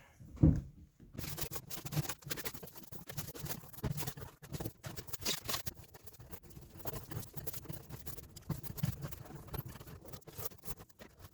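Serrated bread knife sawing and scraping excess foam filler off a vinyl dashboard: a quick, irregular run of scratchy strokes. A single knock comes about half a second in, just before the cutting starts.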